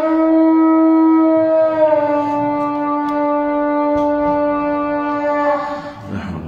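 A muezzin's voice singing the Islamic call to prayer (adhan), carried over the mosque's loudspeakers: one long held, ornamented note that settles slightly lower about two seconds in and breaks off for a breath near the end.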